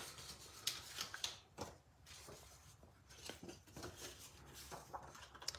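Faint rustling and scattered light taps of cardstock and patterned paper being handled and shifted on a craft mat.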